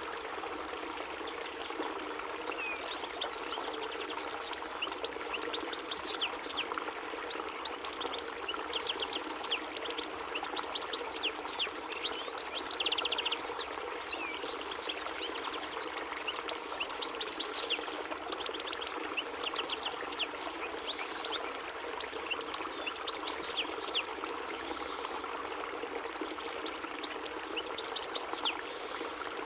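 European goldfinch singing: bouts of rapid, high twittering chirps and trills separated by short pauses, over a steady rushing background noise.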